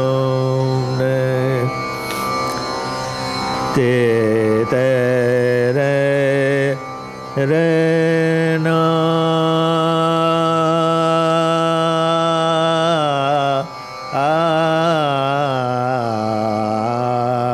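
A male Hindustani classical singer holds long, slowly wavering sung notes over a tanpura drone, breaking off briefly about seven and fourteen seconds in.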